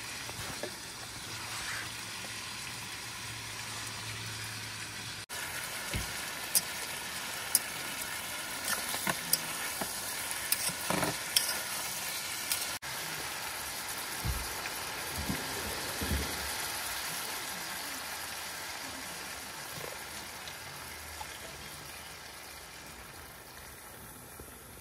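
A steady sizzle like food frying in a pan, with scattered sharp clicks and knocks in the middle, like utensils against cookware.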